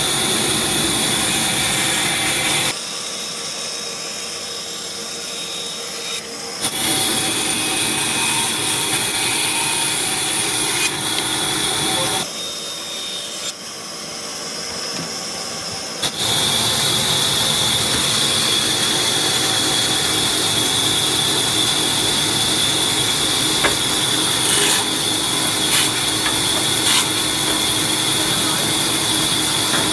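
Band saw running steadily, with a constant high whine over the motor and blade noise. It goes quieter and thinner twice for a few seconds, and a few short ticks come near the end.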